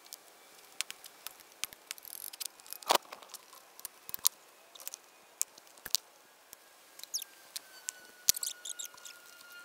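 Scattered metallic clicks and knocks of hand tools and loose metal parts while a Shindaiwa EG16 generator's alternator housing is taken off the engine. The loudest knocks come about three seconds in and about eight seconds in, the second followed by a quick run of small clicks.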